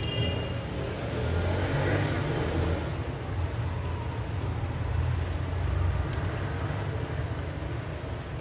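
Steady low background rumble that swells about a second in and again around five to six seconds.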